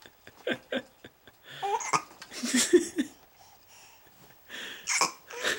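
A baby hiccuping: several short, sharp hics a second or more apart, with brief babbling sounds in between.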